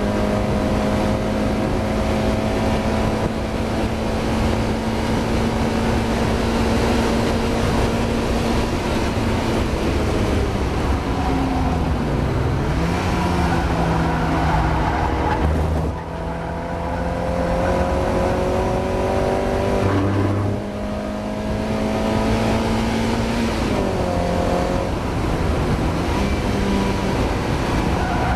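Mazda MX-5 race car engine under hard load, its note holding high, then falling and climbing again about four times as the car slows and picks up speed. The driver describes the car as misfiring.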